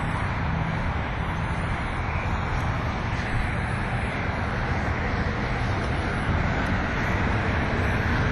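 A steady low engine drone over an even background hiss, with no clear start or stop.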